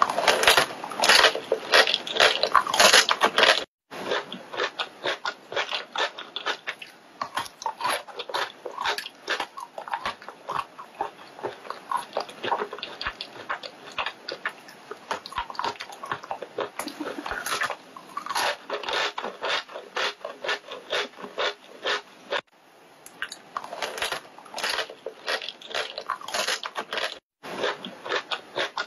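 Siberian chipmunk gnawing and crunching food held in its forepaws: rapid, crisp crunches several times a second, close up and loud, with a few momentary pauses.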